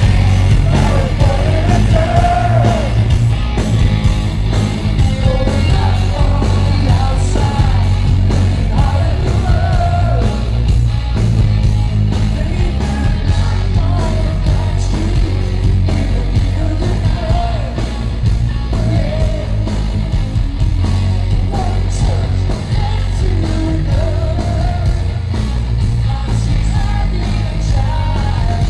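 Glam rock band playing live at full volume: lead vocals over electric guitars, bass and a steady drum beat, recorded from within the crowd, with heavy, boomy bass.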